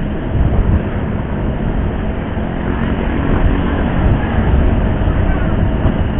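Motorcycle riding in city traffic: steady engine and road rumble with heavy wind noise on the microphone.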